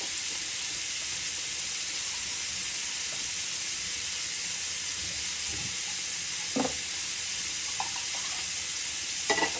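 Chicken liver, carrot and onion sizzling steadily in a non-stick pan over a turned-down gas flame. Two brief short sounds break in, about six and a half seconds in and near the end.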